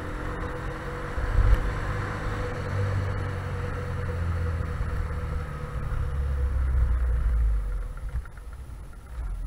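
Small motorcycle's engine running while riding over a rough dirt track, with a heavy low rumble. It quietens about eight seconds in as the bike slows.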